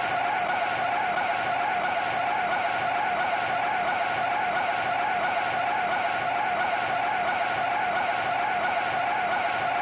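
Golf cart tyres squealing without a break as the cart spins in tight circles, one steady, unchanging squeal.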